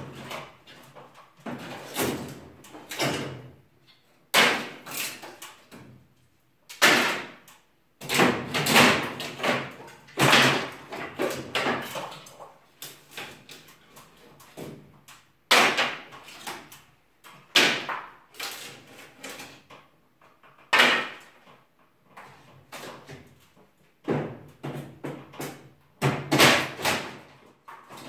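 Demolition of a wooden ceiling: irregular heavy bangs and cracks as boards and battens are struck and torn loose, one every second or two, each with a brief clattering tail.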